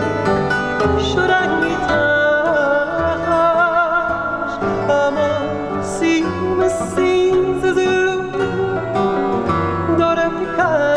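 Fado: a male singer draws out the word 'pisadas' in long notes with wide vibrato, over the bright plucked runs of a Portuguese guitar, the chords of a classical guitar and a plucked bass line.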